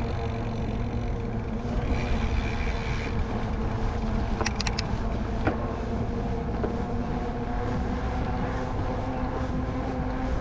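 Steady rumble of wind and tyre noise from a mountain bike riding on wet pavement, with a steady hum under it. A short cluster of sharp clicks comes about four and a half seconds in.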